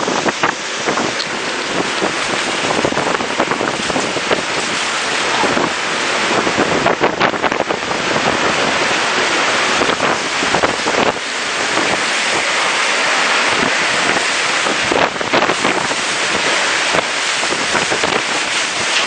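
Strong gusting wind and heavy rain, the wind buffeting the microphone in a loud, steady rush.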